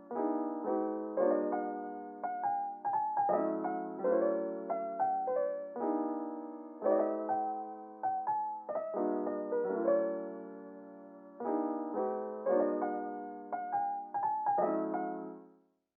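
Gentle background music played on piano, single notes and chords struck and left to fade, in short repeating phrases.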